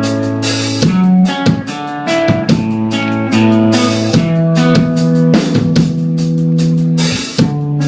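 Rock band playing an instrumental intro: guitar chords held and changed every second or so over drums with cymbal hits, before any singing.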